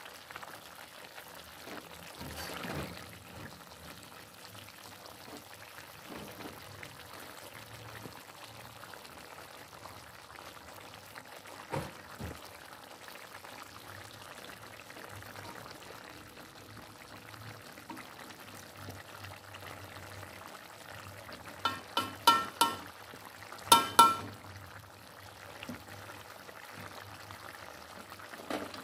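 Beef-skin curry simmering in a metal wok while a metal ladle stirs it. Late on comes a quick cluster of about six sharp, ringing metal clinks, the loudest sounds here.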